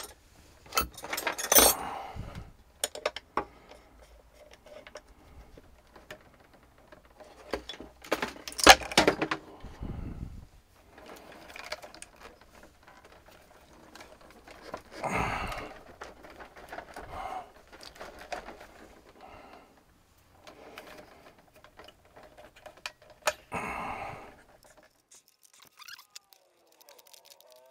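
Handling noise from hands and a hand tool working in a bundle of dashboard wiring: scattered clinks, rattles and rustles that come in bursts of a second or two, with quieter fiddling between. Near the end it drops almost to silence.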